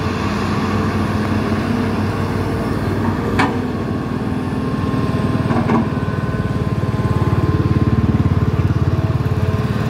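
Hydraulic excavators' diesel engines running as they dig. There is a sharp knock about three and a half seconds in and a double knock near six seconds. In the second half the engine grows louder, with a fast pulsing beat.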